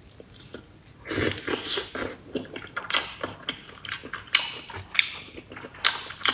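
A person biting into a thick slab of raw orange-fleshed fish sashimi and chewing it with irregular wet, smacking mouth sounds that start about a second in. She takes the fish for rainbow trout rather than salmon.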